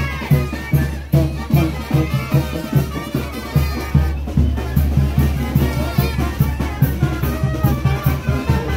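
Brass band with a sousaphone playing lively music over a steady, quick beat of bass notes and percussion strokes.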